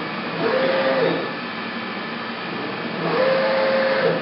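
Axis feed drive of an AVIA FNE 50 N CNC milling machine making two short traverse moves. Each move is a whine that rises quickly, holds steady for under a second and drops away, and the second is a little longer. A steady machine hum runs underneath.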